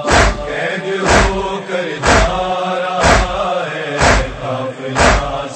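Mourners' unison chest-beating (matam) during a noha: a heavy, even slap about once a second, with chanting voices held between the strikes.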